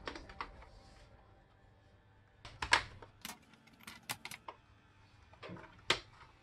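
Plastic snap clips of the MSI GE63 Raider's bottom cover clicking loose as a plastic pry tool is worked along the seam: a scattered series of sharp clicks between about two and six seconds in, the loudest near the start of the series.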